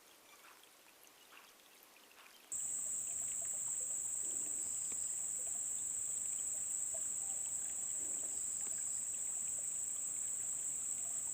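A steady, high-pitched drone of insects, crickets or cicadas, that starts abruptly about two and a half seconds in. Before it there are only faint small ticks and water sounds.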